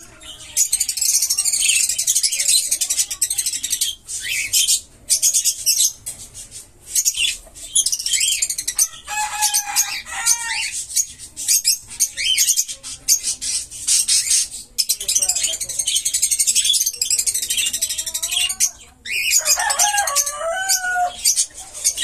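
Caged lovebirds and parakeets chattering, with a constant run of rapid, high-pitched squawks and chirps. Two longer, lower calls break in, about ten seconds in and again near the end.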